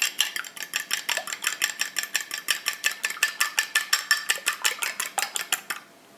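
A metal fork beating an egg in a small glass bowl, clinking against the glass in a fast, even rhythm of about eight strokes a second, then stopping shortly before the end.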